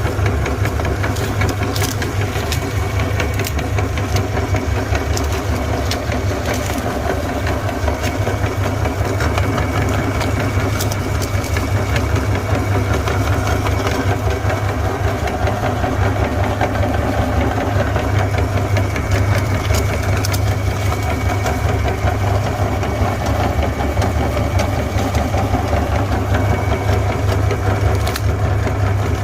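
Meat grinder running with a steady low motor hum, crunching ice cream cones, with scattered sharp cracks as the crunchy cone pieces break.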